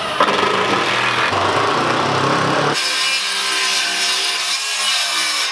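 Power tools working timber: a hand-held power tool runs on a board, then, after an abrupt change almost three seconds in, a cordless circular saw cuts steadily along a plank.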